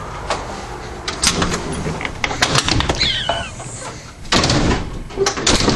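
A run of sharp clicks and knocks, loudest in a cluster near the end, with a short falling squeak about three seconds in.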